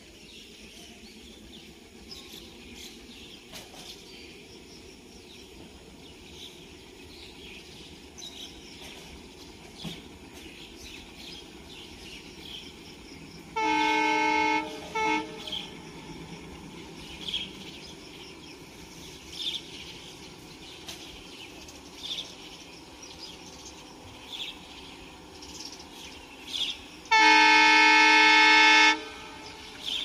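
Horn of an ALCO WDM-3D diesel locomotive approaching at speed. There is a long blast and a short one about 14 seconds in, then another long blast near the end.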